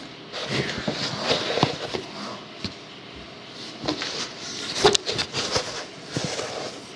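Socks rustling and shuffling as they are pushed around by hand in a cardboard box, with uneven handling noise and a few light knocks, the loudest about five seconds in.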